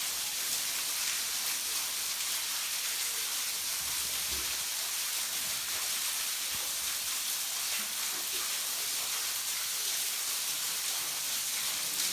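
Waterfall pouring and splashing onto rock: a steady, unbroken hiss of falling water.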